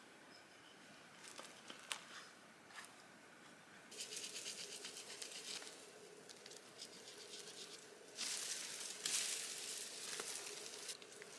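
A few light knife-on-wood clicks and scrapes from whittling, then shrub branches and leaves rustling and swishing as they are pulled and bent, loudest for about three seconds near the end.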